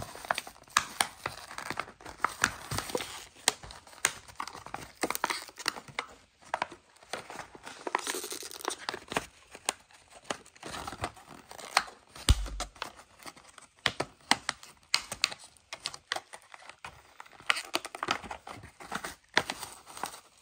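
A Matchbox toy car's blister pack being torn open by hand: the cardboard backing card tearing and the clear plastic blister crinkling, in irregular sharp crackles throughout.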